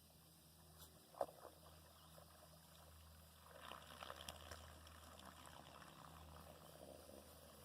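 Faint water trickling and lapping around a kayak over a low steady hum, with one sharp knock about a second in.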